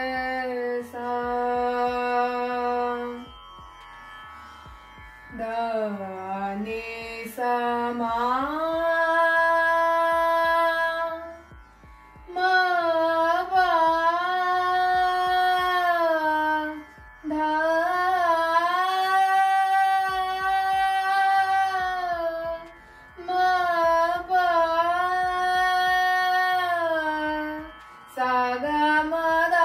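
A woman singing a Hindustani classical bandish in raag Bhairav, her voice holding long notes and sliding slowly between them, with short breaks for breath every few seconds.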